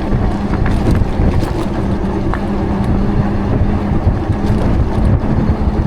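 Wind buffeting the microphone of a moving e-bike, heavy and rumbling, with a steady low hum underneath.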